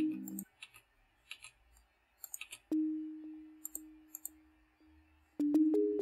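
Sparse electronic music played back track by track: a low synth chord cuts off about half a second in, then a lone soft note sounds and fades away. About five and a half seconds in, a few more notes come in. Scattered small clicks fall in between.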